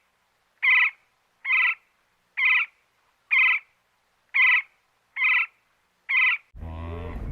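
Seven short, identical animal calls, evenly spaced about one a second. Near the end a different, lower-pitched sound starts.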